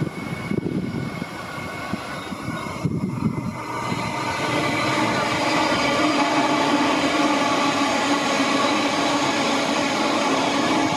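Queensland Rail electric multiple-unit train running into the station alongside the platform: wheels on rail and motor noise, growing louder about four seconds in as the cars pass close by, then a steady hum with several held tones.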